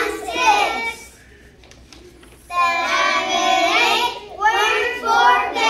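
A group of young children singing together in unison: a short phrase, a pause of about a second and a half, then a long held note followed by another phrase.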